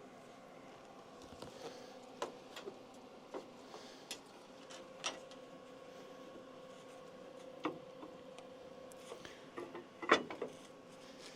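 Scattered light clinks and knocks of steel frame pieces being handled and set in place, over a faint steady hum. The sharpest cluster of knocks comes about ten seconds in.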